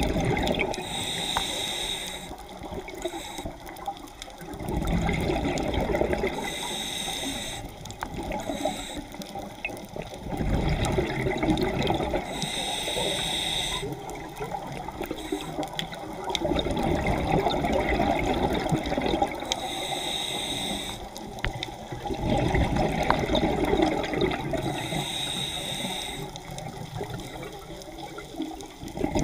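A scuba diver's regulator breathing underwater, heard close up: a short hiss on each inhalation, then a longer low bubbling rush as the exhaled air vents, repeating about every six seconds, five breaths in all.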